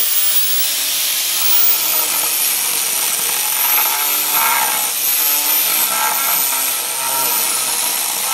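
Angle grinder driving an Arbortech Mini-Turbo carving disc with two tungsten carbide teeth, cutting a hollow into a wood block. The grinder gives a steady high whine that wavers in pitch, over the continuous rasp of the teeth chewing wood.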